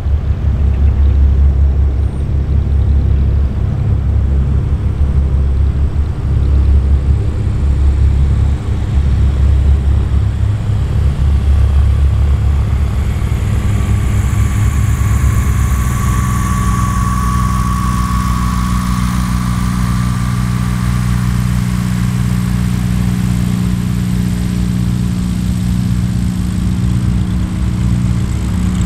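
Sonex light aircraft's piston engine droning in flight overhead, with a heavy, uneven low rumble in the first half; about halfway through the engine note settles into a steady, pitched hum as the plane heads toward the listener.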